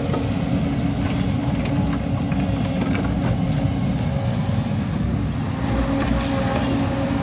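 Excavator's diesel engine running steadily, with a few faint knocks scattered through it.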